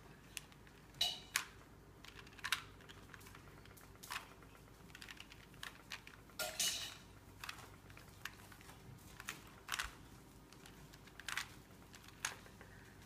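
Rubik's Cube layers being turned by hand, giving quick plastic clicks at irregular intervals, some in quick pairs.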